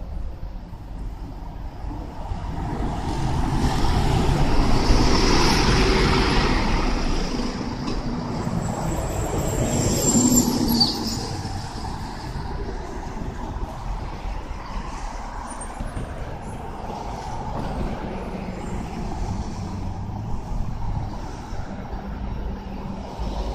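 Busy road traffic. A heavy vehicle passes loudly about four to six seconds in, and about ten seconds in its brakes give a brief high-pitched squeal and hiss. Steadier, lower traffic noise follows.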